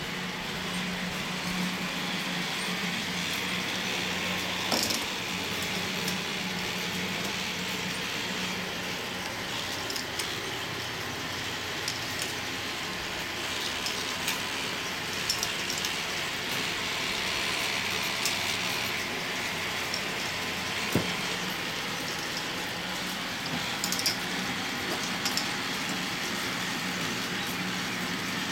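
K'nex ball machine running: a steady hum of its lift motors and chains, with scattered clicks and clacks of plastic balls rolling through the tracks and gates.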